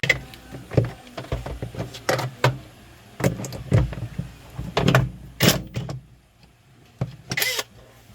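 A string of irregular knocks and clatters, about a dozen, some with a dull thud beneath, as parts and tools are handled during washing machine repair work; they pause for about a second near the end, then come once more.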